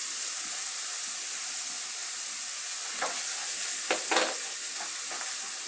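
Onion with garlic and ginger paste sizzling steadily in hot oil in a non-stick pan, stirred with a wooden spatula that scrapes the pan a few times past the middle.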